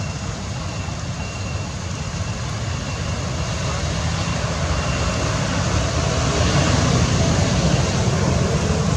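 Steady outdoor background noise: a low rumble under an even hiss, slowly growing louder.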